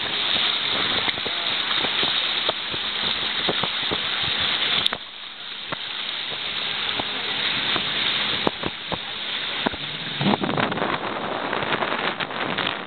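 Wind buffeting the microphone and water rushing past a boat moving across open water, with the boat's engine humming low underneath. A sharp click about five seconds in, after which it is somewhat quieter.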